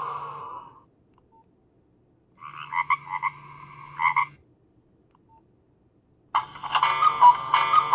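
Nokia 1112 mobile phone playing monophonic ringtones through its small loudspeaker, one after another: a warbling tone that fades out about a second in, then after a pause two seconds of pulsed beeping on two pitches, then a busier, rhythmic beeping tune starting near the end. A faint steady hum sounds under each tone.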